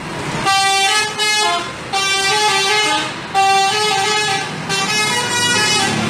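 Multi-tone 'telolet' bus air horn playing its tune: four loud blasts, each stepping through a few notes.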